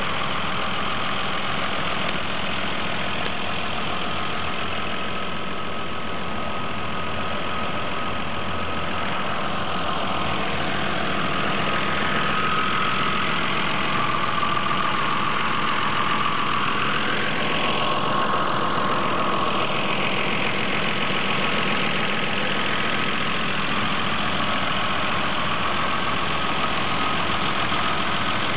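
Toyota Supra 3.0 Turbo's turbocharged inline-six idling steadily, heard up close in the open engine bay.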